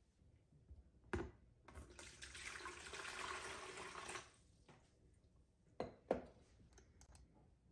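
Water poured from a glass measuring jug into a plastic tub, a steady splashing stream for about two seconds that stops about four seconds in. A knock comes just before the pour, and two sharp knocks of glass on the countertop follow about six seconds in.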